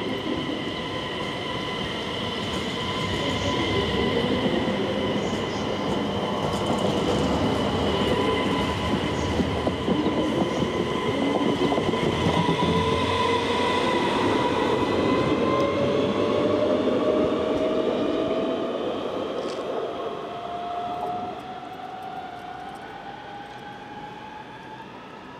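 Regina X52 electric multiple unit pulling away and gathering speed past the listener. Steady high whines run over the rumble of the wheels, and from about halfway a motor whine climbs steadily in pitch as the train accelerates. It is loudest as the train goes by and fades as it draws away near the end.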